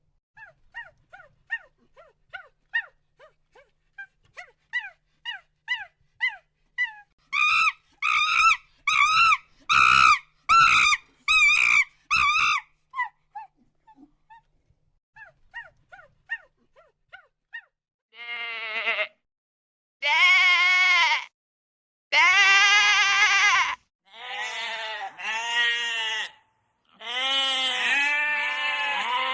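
Short high peeps, several a second, for the first seven seconds or so, then a run of loud quavering calls. From about two-thirds of the way in come long calls of a bleating goat, each lasting one to two seconds.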